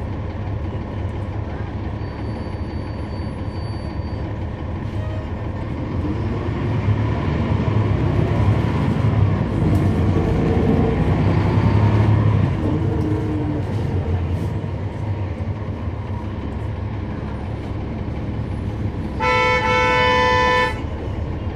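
The Cummins ISL9 diesel engine of a NABI 40-SFW transit bus heard from on board, pulling harder from about six seconds in with a rising pitch, then easing off after about twelve seconds. Near the end a vehicle horn sounds one steady blast of about a second and a half.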